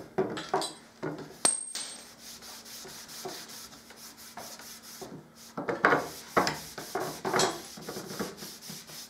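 Cloth pad rubbing antique wax onto a stained wooden board in uneven back-and-forth strokes, growing faster and louder about halfway through. A single sharp click sounds about a second and a half in.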